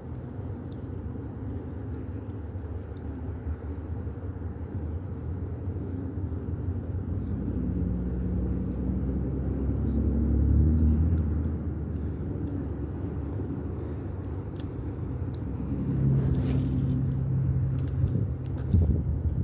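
A low engine rumble, like a motor passing by. It swells to its loudest about halfway through, fades a little, then rises again briefly near the end.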